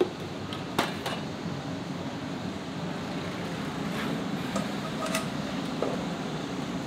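Ramen shop ambience: a steady hum of kitchen ventilation with a few sharp clinks of tableware, two close together about a second in and more around four to six seconds.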